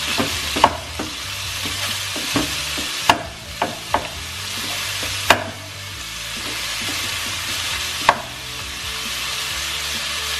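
Pork mince sizzling steadily as it fries in a speckled enamel pan, stirred and broken up with a wooden spoon that knocks sharply against the pan now and then.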